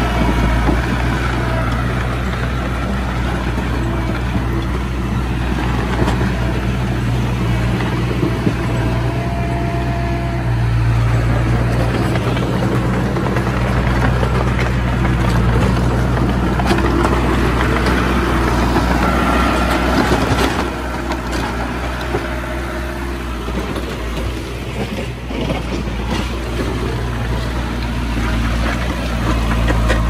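Komatsu D20A bulldozer's diesel engine running steadily, with a few short, faint higher whines over it; the engine sound drops a little about two-thirds of the way through.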